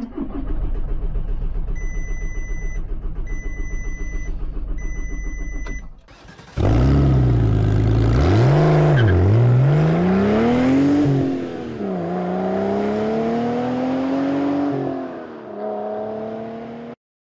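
Starter motor cranking a car engine steadily for about six seconds without it catching, while a dashboard warning chime beeps three times. Then an intro jingle of gliding tones that rise and fall like an engine revving, cutting off suddenly near the end.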